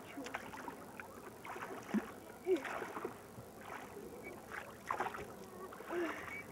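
Small rowboat being rowed: oars dipping and water splashing and sloshing in irregular strokes.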